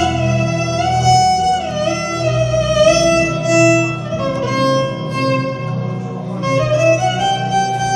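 Live instrumental music: a violin plays a melody with pitch slides over acoustic guitar and keyboard accompaniment.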